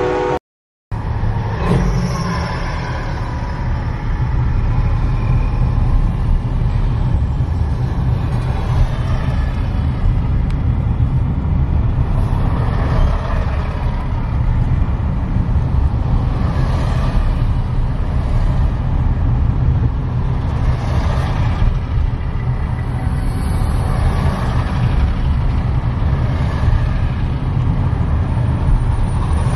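A line of diesel semi trucks rolling slowly past: a steady low engine rumble with tyre and traffic noise, swelling and easing every few seconds as trucks go by. The sound cuts out briefly about half a second in.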